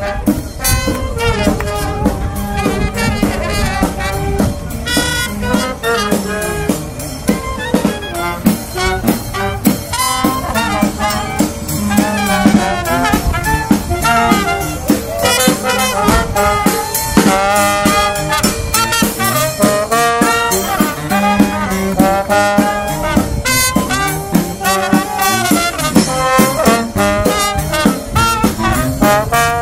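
Jazz music led by brass, with trombones, trumpets and saxophone over a steady beat.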